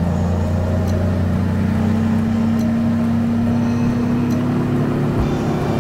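Mercury Pro XS outboard motor running steadily at planing speed, a constant low engine drone, with the rush of water churning in its wake.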